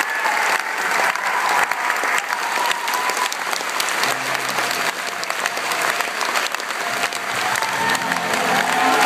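Audience applauding steadily, a dense continuous clapping, with faint low sustained tones coming in underneath about four seconds in.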